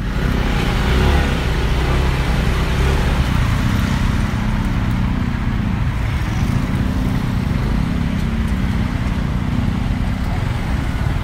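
Motorcycle engine running steadily at low speed, heard from the rider's seat as a continuous low drone under a steady rush of noise.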